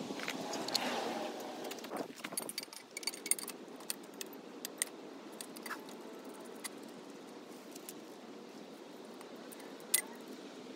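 Small metal clinks and jangles from parts and tools being handled while the exhaust header is fitted to a motorcycle engine. A rustle at the start is followed by scattered clicks and a sharper click near the end.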